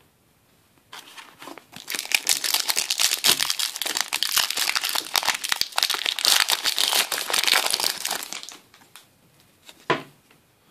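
Foil wrapper of a Yu-Gi-Oh booster pack being torn open and crinkled by hand: a dense crackling that starts about a second in and stops at about eight and a half seconds, followed by a brief tap near the end.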